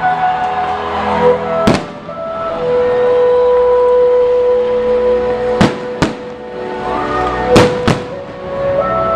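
Music with long held notes, broken by five sharp bangs of fireworks shells bursting: one about two seconds in, then a pair about six seconds in and another pair near the end.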